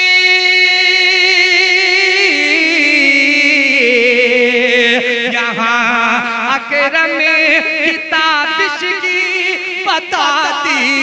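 A man singing a sehra, an Urdu wedding poem, through a microphone on long held notes that waver. About two seconds in the pitch steps down, and from about five seconds in he sings quick ornamented runs.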